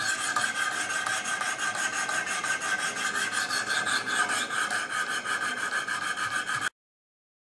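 Wicked Edge 400-grit diamond stones rasping in quick, repeated strokes along an S30V steel knife blade, reprofiling the factory edge to raise a burr. The steady rasp cuts off abruptly near the end.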